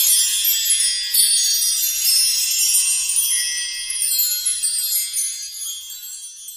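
High, shimmering chimes: many overlapping tinkling tones ringing together, fading out near the end.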